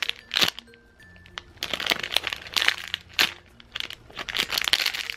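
Clear plastic packaging bag crinkling in irregular bursts as a bagged foam squishy is handled.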